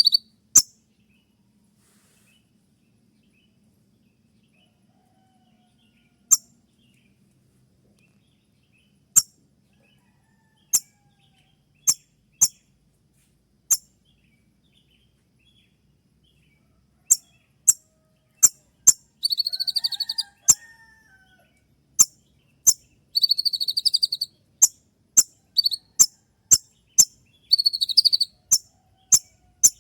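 Konin (kolibri ninja) sunbird calling with its sharp 'tembakan' shot notes: very short, high, clicking notes at irregular intervals. After a quiet stretch early on, the notes come thick and fast in the second half, broken by a few brief buzzy trills.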